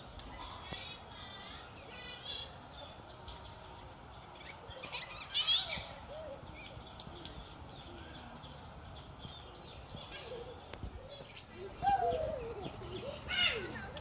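Small birds chirping and twittering in short, fast bursts over a steady rural background noise, with a louder, lower sliding call about twelve seconds in.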